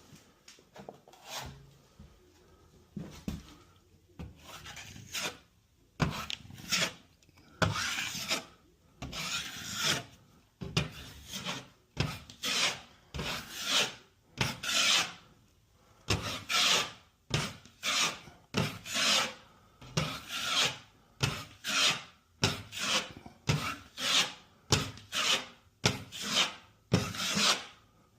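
Drywall taping knife scraping wet joint compound over a taped patch in repeated smoothing strokes. The strokes are sparse at first, then settle into about one or two a second.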